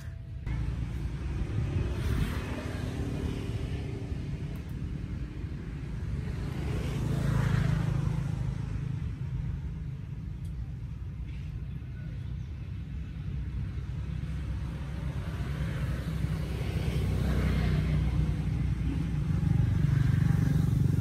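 Low engine rumble from passing motor vehicles. It swells and fades as one goes by about a third of the way in, and swells again, louder, near the end.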